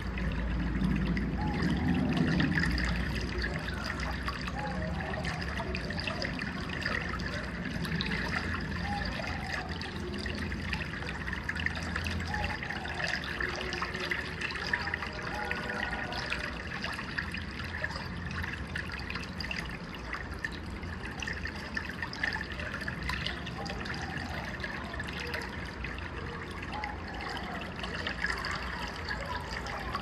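Rain outside a window: a steady wash of falling water with many small drop ticks. A low rumble swells briefly a second or two in.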